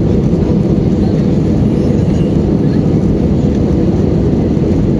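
Airbus A320-200 jet engines and airflow, a loud, steady low rumble with no changes.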